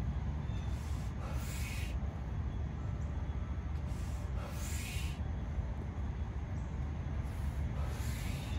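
A person smoking a cigarette, blowing out smoke in three long, hissing exhales about three seconds apart, over a steady low rumble of wind on the microphone.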